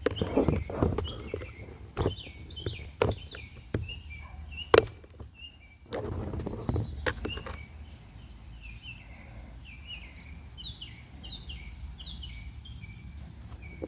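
Small birds chirping repeatedly in short, quick notes, with scattered sharp clicks and knocks of something being handled. The loudest click comes a little under five seconds in, and there is a burst of rustling and knocking at about six to seven seconds.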